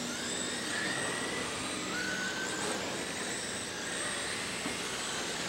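Radio-controlled dirt-oval race cars running laps, their motors making a high whine that rises and falls as the cars speed past.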